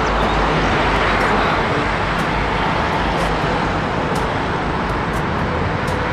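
Double-decker city bus driving along a street: steady engine and road noise, easing slightly near the end as the bus moves off.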